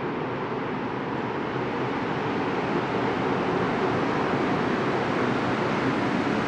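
A Montréal Métro MR-73 rubber-tyred train approaching along the tunnel into the station. It makes a steady running rumble that grows louder from about two seconds in as the train nears the platform.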